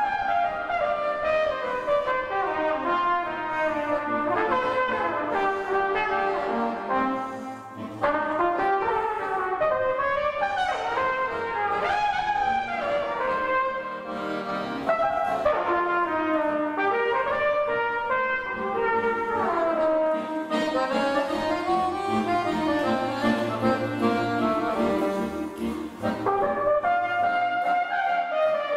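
Trumpet and accordion duet: the trumpet plays a melody over the accordion's accompaniment, with short breaks between phrases.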